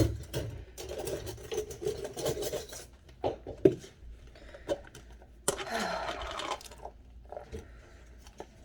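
Indoor handling noises: rubbing and scraping with scattered light clicks and knocks, and a louder scraping rush about five and a half seconds in.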